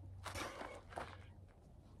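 A man catching his breath after a set of kettlebell presses: two short, faint breaths in the first second, with a shuffle of feet on dirt.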